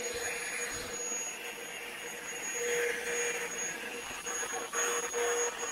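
Vacuum cleaner running as its nozzle is passed over a cat's fur: a steady motor hum and high whine over rushing air, with a brief dip near the end.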